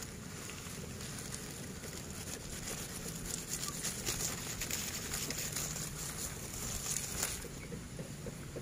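Crackly rustling of dry leaves close to the microphone, from about two and a half seconds in until about seven seconds, over a steady low outdoor hum.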